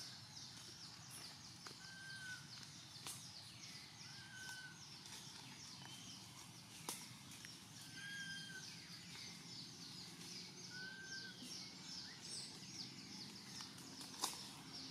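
Faint forest ambience: a high chirping repeated about three times a second, a short call every two to three seconds, and a couple of sharp clicks, the louder one near the end.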